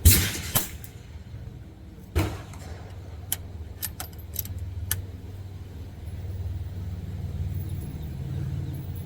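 Two .22 rimfire rifle shots about two seconds apart, firing standard-velocity rounds, followed by a few light metallic clicks and a low steady rumble in the background.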